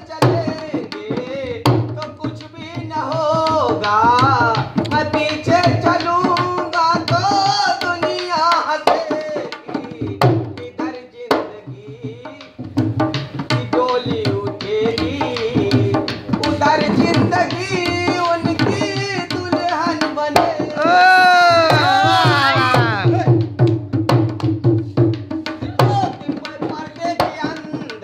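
Dholak, a two-headed barrel hand drum, played with the bare hands in a steady folk rhythm. It accompanies a man singing a Hindi song melody in long, wavering held notes.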